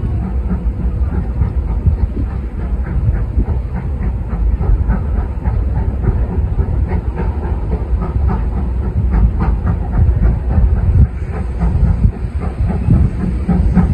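Steam locomotive working as it hauls a train along the line: a steady low rumble with clicking from the wheels over the rail joints.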